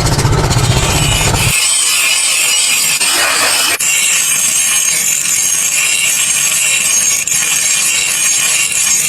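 Steel being worked with an abrasive tool, a steady high hiss of grinding or sanding with no low rumble. A heavier, deeper machine sound runs underneath at first and stops about a second and a half in.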